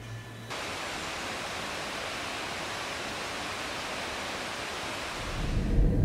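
Steady, even rushing noise that starts abruptly about half a second in, after a faint low hum cuts off. Near the end a low car-engine rumble rises underneath it.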